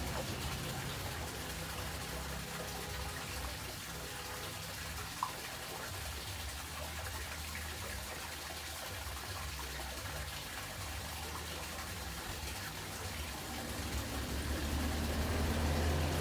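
Steady aquarium water noise, the running and splashing of the tank's water circulation, with a low hum under it. A single brief click about five seconds in, and the sound grows a little louder near the end.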